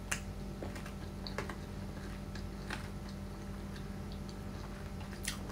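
Quiet room tone: a steady low hum with a few faint, scattered clicks.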